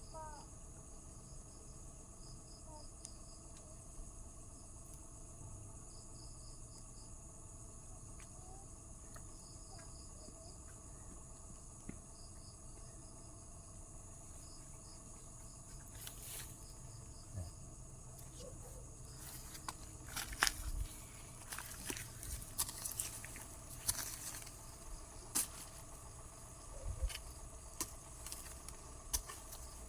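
Insects chirring steadily, with short pulsed cricket chirps repeating through the first half. About halfway through, scattered knocks, scrapes and thumps begin and grow busier near the end.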